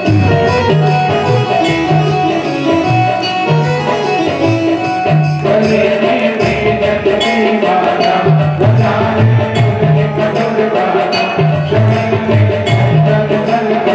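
Instrumental music with a repeating bass line under sustained melody notes; about five seconds in, more instruments and busier percussion join.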